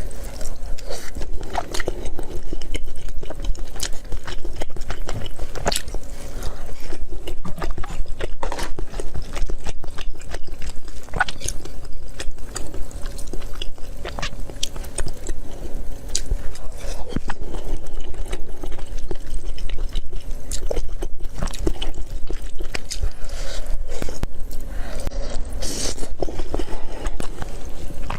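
Close-miked chewing and biting of food, a dense irregular run of short clicks and crunches.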